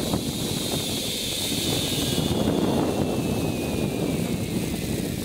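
Zipline trolley running along the cable: a high whine that falls steadily in pitch as the rider slows toward the landing platform, over a steady rush of wind on the microphone.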